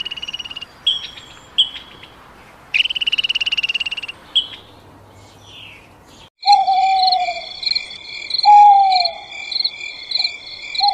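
Animal calls from two recordings. First come two long, high, rapidly pulsed trills with a few short chirps. After a break about six seconds in, falling hoot-like calls repeat over a steady, evenly repeating high chirping.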